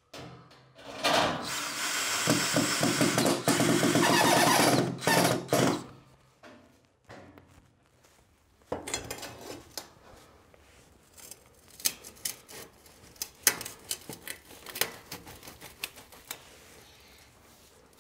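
Cordless drill running for about five seconds, with a short stop near the end. Then scattered metallic clicks and knocks as stainless-steel chimney pipe sections are handled and fitted through a wall pass-through.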